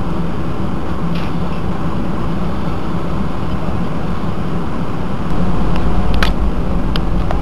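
Steady cabin noise of an Airbus A319-111 taxiing, its CFM56 engines at idle with a low drone and hum. About five seconds in the sound gets louder and deeper. A few faint clicks sound over it.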